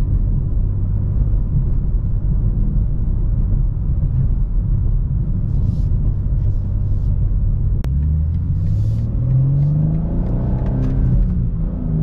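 2023 BMW M2 engine and stock exhaust heard from inside the cabin in Sport Plus mode, partly piped in through the car's speakers. It drones steadily while cruising. About eight seconds in there is a click, then the engine note rises as the car accelerates, and it drops back to a steady note near the end.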